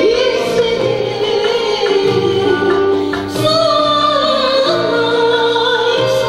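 Turkish classical music ensemble of ud, ney and violin playing a song in the makam kürdilihicazkar, with female singing.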